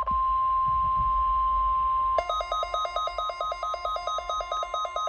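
NOAA Weather Radio 1050 Hz warning alarm tone: a single steady, high tone. About two seconds in, a second, buzzier alarm joins it, beeping rapidly between two pitches about four times a second.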